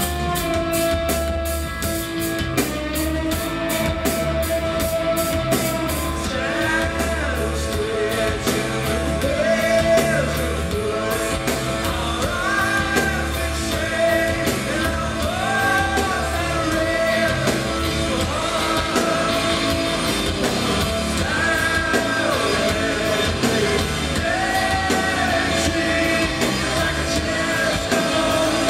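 Live rock band with electric guitars, bass and drums playing loud, with fast cymbal strokes at first. A voice starts singing over the band about six seconds in and keeps on in long, sliding phrases.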